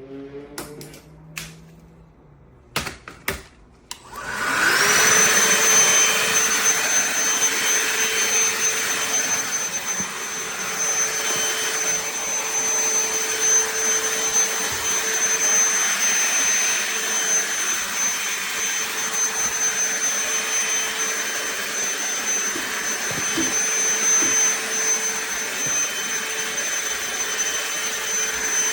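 DEWALT DCV501HB 20V cordless handheld vacuum: a few clicks, then the motor spins up about four seconds in and runs steadily with a high-pitched whine.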